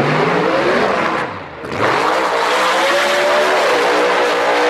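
Drag racing car's V8 engine revving with rising pitch, dropping away briefly about one and a half seconds in, then running loud at full throttle, its pitch climbing and then holding.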